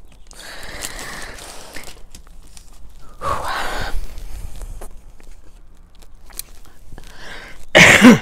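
A woman's breathy sighs, two long exhalations, then a louder, rougher throat clearing just before the end.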